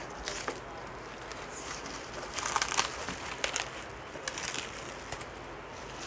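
A plastic wrapping bag crinkling and rustling as it is pulled open by hand, in irregular rustles that are loudest about halfway through.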